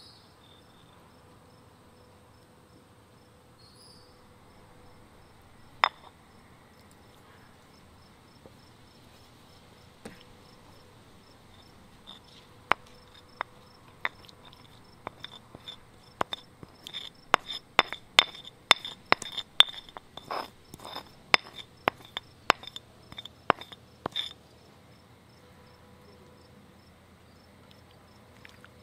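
Sharp clinks of a spoon knocking and scraping against a bowl as a herb paste is scooped out: a few at first, then several a second for about eight seconds. Crickets chirp steadily in the background.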